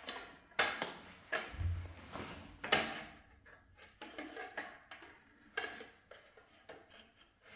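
Irregular scrapes, taps and clinks of hand work on a flush socket box being pressed into wet bonding compound and levelled with the wall surface, with one dull low knock about a second and a half in.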